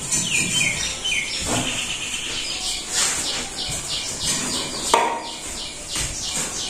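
A bird chirping in quick repeated notes, about three or four a second, with a few falling chirps near the start. A few light knocks come through as well, the sharpest about five seconds in.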